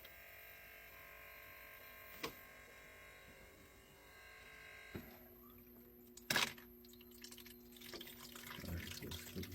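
Faint running water hissing steadily, with a few sharp clicks and a knock. A low steady hum starts about five seconds in.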